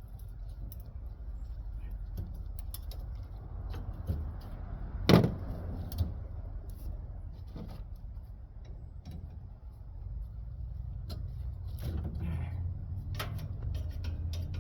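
Scattered clicks and metal clinks of copper tubing being cut and worked with side cutters on a central air conditioner's coil, with one sharp, loud snap about five seconds in and a smaller one a second later. A steady low rumble runs underneath.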